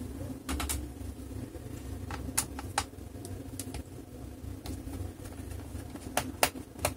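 Scattered light clicks and taps of hands handling a plastic laptop base and working at its rubber foot, about nine in all and loudest near the end, over a steady low hum.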